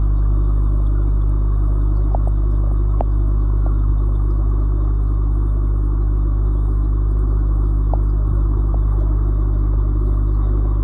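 Steady low hum of running aquarium equipment, with a few faint clicks.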